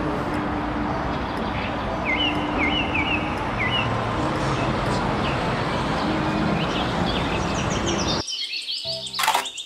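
Street traffic noise as a red single-decker city bus drives past, with a bird chirping several times about two seconds in. The street noise cuts off suddenly near the end.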